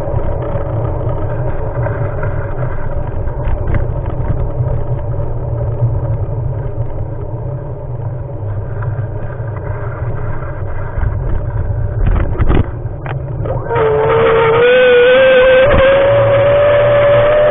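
Steady low rumble of wind and travel noise on a moving action camera, with a faint steady whine. About fourteen seconds in, louder music comes in, its melody wavering and rising.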